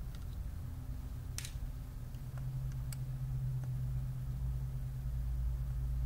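Steady low hum, with a few small sharp clicks of a small screwdriver and screws as the battery screws of a laptop are taken out. The loudest click comes about one and a half seconds in, and fainter ones follow near three seconds.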